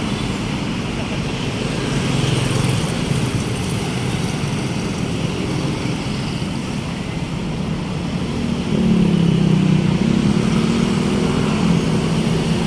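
Diesel tour-bus engine running in road traffic. A louder engine drone comes in about nine seconds in and holds, with no horn sounding.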